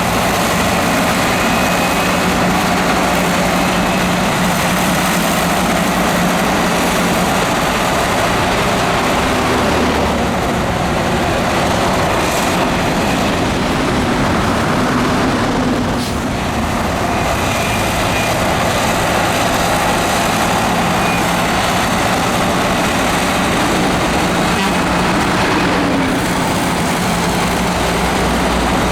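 Heavy diesel earthmoving machinery running steadily and loud, with a brief drop in level about halfway through.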